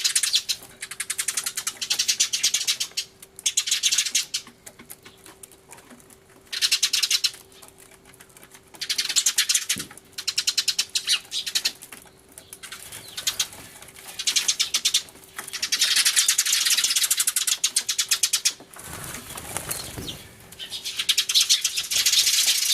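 Eurasian tree sparrows chattering loudly in bouts of rapid, insistent chirps, each bout a second or a few long with short lulls between. A brief low rustle, like wingbeats, comes about three-quarters of the way through.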